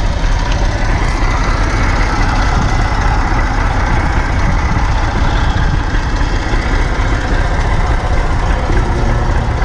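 Massey Ferguson tractor's diesel engine idling steadily.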